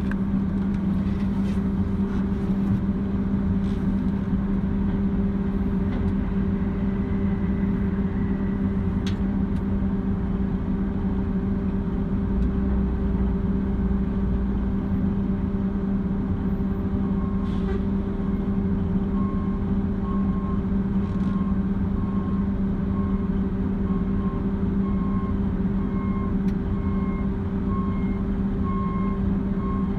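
Heavy diesel engine running steadily with a constant low hum. From a little past halfway, a vehicle's reversing alarm beeps at an even pace, a bit faster than once a second.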